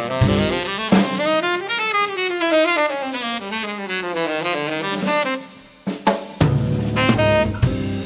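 Live jazz-funk band with saxophone and horns in front. For several seconds the bass drops out while two horn lines slide in opposite directions, one climbing and one falling. The full band with bass and drums comes back in about six seconds in.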